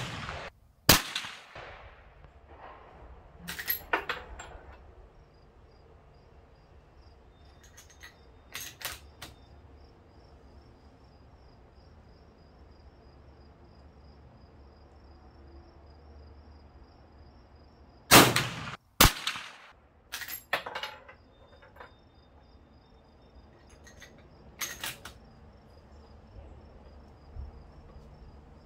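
Lever-action .30-30 rifle firing reduced-load sabot rounds with .177 steel BBs: sharp reports about a second in and again about two-thirds through, with smaller metallic clicks and clacks of the action being worked and single rounds loaded between shots. Insects chirp steadily and faintly underneath.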